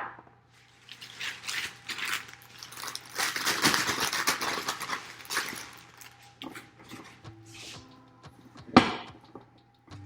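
Knife cutting through the white ends of asparagus spears, a run of crisp crunching cuts that thins out, then one sharp knock about nine seconds in.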